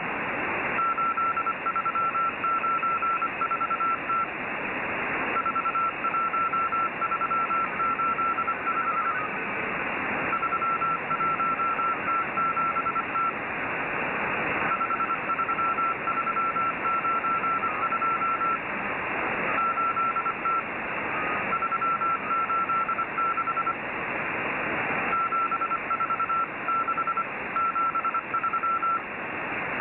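Morse code (CW) signal heard through a shortwave radio receiver: a single-pitch beep keyed in short and long marks, in runs of a few seconds with brief pauses between them, over a constant hiss of static that swells in the pauses.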